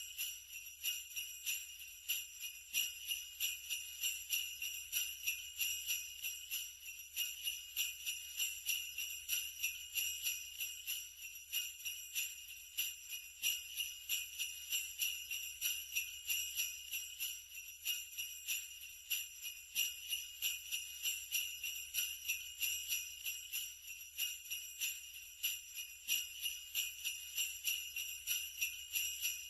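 Sleigh bells shaken in a steady, even rhythm, jingling about four times a second without a break.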